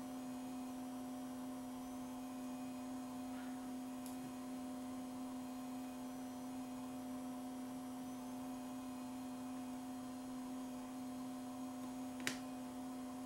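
Steady electrical hum: one low tone with fainter higher tones above it, unchanging throughout, with a single faint click about twelve seconds in.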